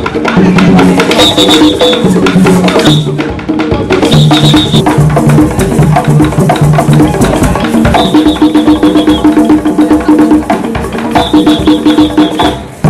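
A drum troupe plays live on tall wooden hand drums: a fast, dense rhythm of hand strikes with sharp wooden clicks, and a melody of held, changing notes over it.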